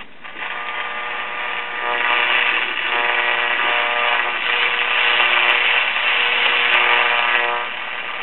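Late-1940s GE AM tube radio tuned to a weak station: loud static hiss from its speaker, with steady tones coming through the noise that change every second or two. It gets louder about two seconds in.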